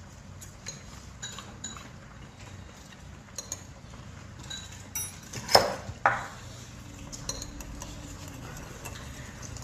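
Cutlery and dishes clinking at the table: light clinks with short ringing, then two louder knocks about five and a half and six seconds in.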